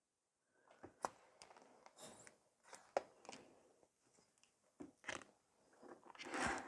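Quiet handling of a plastic squeeze bottle of acrylic paint and a tissue: scattered small clicks and taps, then a short rustle about six seconds in, the loudest sound.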